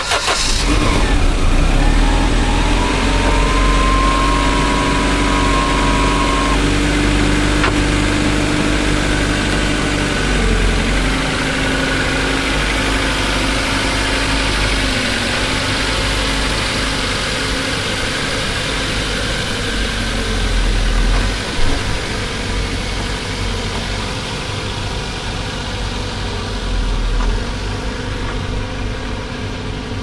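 Car engine starting up right at the start, then running steadily, with a high steady whine over the first several seconds, as the car is driven off. A short sharp knock stands out about 21 seconds in.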